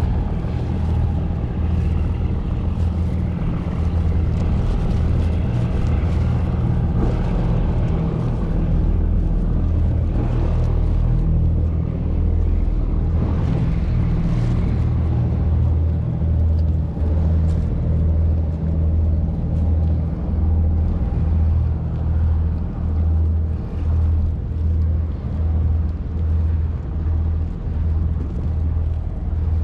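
A loud, low engine drone runs steadily and, from about halfway in, pulses about once a second.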